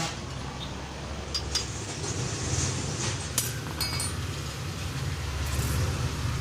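A few sharp metallic clinks and taps, some ringing briefly, as a new 6202 ball bearing is tapped into the BLDC ceiling fan's bottom cover, over a steady low rumble.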